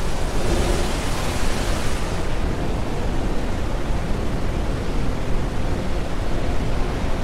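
Loud, steady wash of noise, heaviest in the low end, with a brighter hiss on top that drops away a little over two seconds in.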